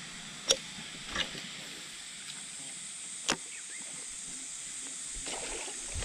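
A steady high hiss with three sharp short pops or clicks spaced irregularly.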